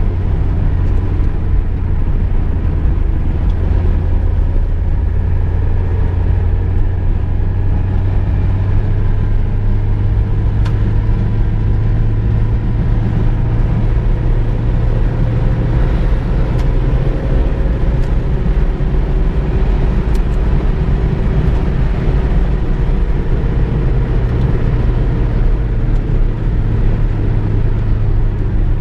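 Car driving along, with a steady low engine and road rumble. The engine's pitch rises slowly for about ten seconds midway as the car gathers speed, and there are a few faint clicks.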